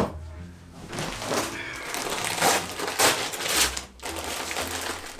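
Gift wrapping paper rustling and being torn and crumpled as a present is unwrapped, in irregular crackling bursts.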